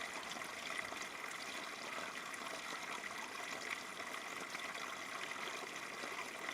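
A small stream running and trickling steadily.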